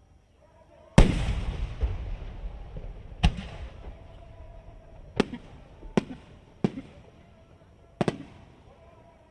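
Aerial firework shells bursting overhead in six booms. The first, about a second in, is the loudest and rolls on in a long echo; five sharper reports follow at uneven intervals.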